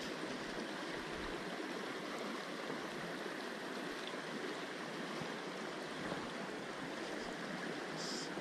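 Steady rush of shallow river water flowing.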